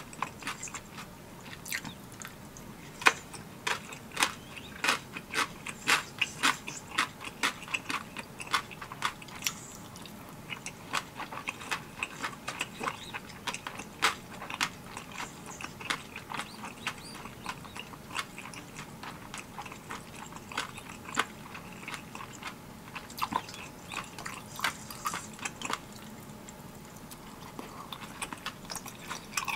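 Close-miked eating sounds: chewing spicy tteokbokki, with many sharp, irregular wet mouth clicks and smacks that thin out for a while midway and then pick up again.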